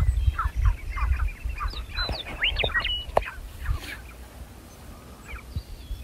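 Sharp-tailed grouse calling: a quick run of many short calls for about the first three and a half seconds, then fading, over a low wind rumble on the microphone.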